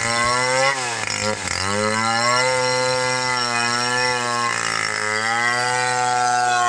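Two-stroke chainsaw engine running at high revs, with a steady whine. Its pitch dips and climbs back about a second in, then holds with a small shift near five seconds.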